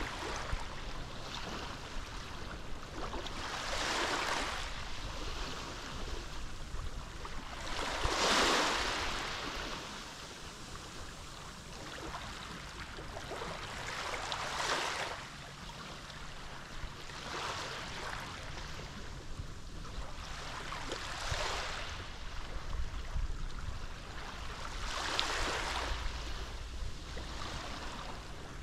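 Small Mediterranean waves washing onto the shore, each one rising and falling back in a swell of noise every three to five seconds; the biggest breaks about eight seconds in.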